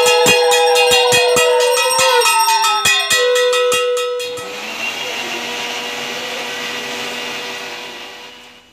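Conch shell (shankha) blown in long wavering notes that drop in pitch near the end of each blow, over a hand bell rung rapidly at about four strokes a second. About four seconds in this gives way to a steady hiss with a faint low hum, which fades away near the end.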